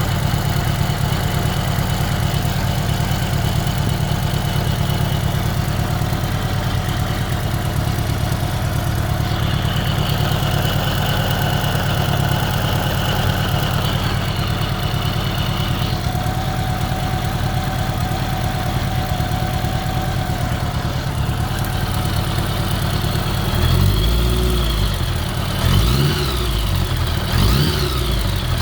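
1983 Honda GL1100A Gold Wing's flat-four engine idling steadily with a new ticking noise from the left side of the engine, then revved a few times near the end.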